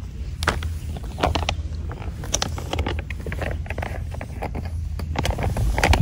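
Small wood fire crackling in a compact fire grill: scattered sharp pops and snaps over a steady low rumble.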